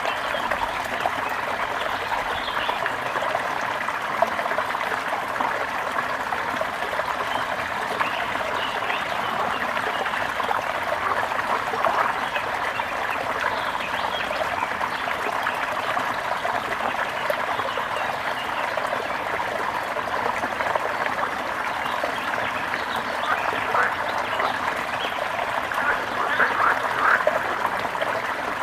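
A gently flowing river trickling and burbling steadily, with short bird chirps scattered through it that come more often near the end.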